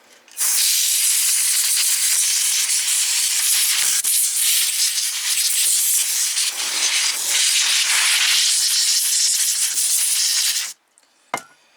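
Compressed-air duster spraying in one long, loud hiss, blowing dust off a graphics card; it cuts off abruptly near the end.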